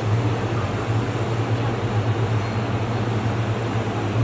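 Steady machine hum: a strong, even low drone with fan-like hiss over it, unchanging throughout.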